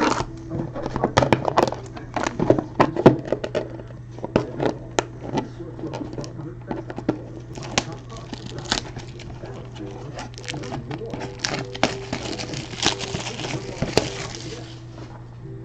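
A sealed trading-card box being opened by hand: plastic shrink-wrap crinkling and tearing and the cardboard box clicking and rustling, with a thicker burst of crinkling near the end, over a steady low hum.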